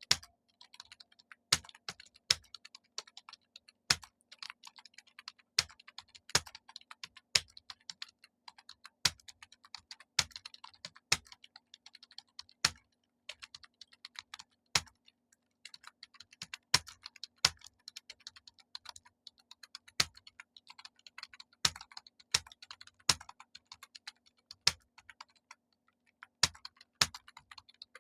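Rapid, continuous typing on a computer keyboard: a steady stream of light key clicks, with a louder, sharper key strike about once a second.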